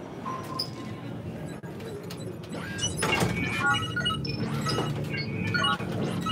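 Short electronic bleeps at changing pitches, played by an interactive exhibit's panel of light-up arcade buttons as they are pressed, over a steady low electronic drone. The bleeps come thick and fast from about three seconds in.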